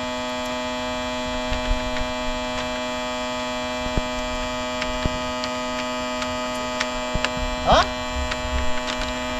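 Steady hum made of several fixed tones, unchanging throughout, with scattered light clicks and a brief rising sound about three-quarters of the way through.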